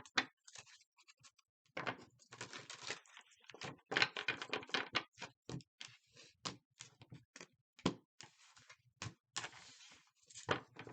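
A large deck of tarot cards being shuffled by hand: a run of quick, irregular card slaps and clicks, with longer rustling riffles about two and four seconds in.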